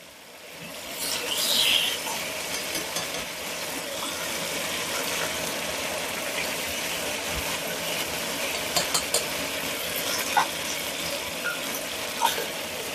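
Chicken thighs sizzling steadily as they fry in oil and butter in a pot, with a few light clicks of metal tongs against the pot as pieces are turned and lifted out. The sizzle swells over the first couple of seconds and then holds.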